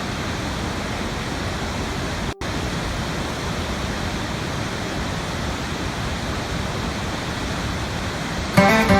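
Waterfall rushing steadily, an even hiss of falling water, with a brief dropout about two seconds in. Plucked guitar music comes in near the end.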